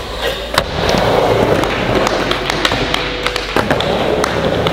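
Skateboard on an indoor wooden park: the trucks grind along a ledge in a crooked grind, the board lands with a sharp clack about half a second in, and the wheels keep rolling across the ramp surface with scattered small clicks.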